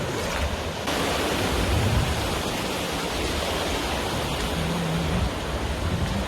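Rushing water of a rain-swollen mountain valley stream, a steady full noise that grows a little louder about a second in.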